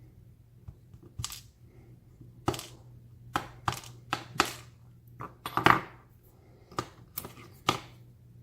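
Small metal lock parts clicking and clinking on a hard surface as a padlock core and its pins are handled: about a dozen irregular sharp clicks, the loudest cluster a little past the middle, over a faint steady hum.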